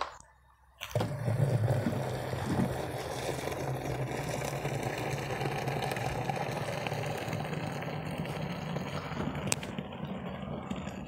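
Fresh cow's milk poured in a thick stream from a brass bucket into a plastic milk can: a steady gushing splash that starts about a second in and runs without a break.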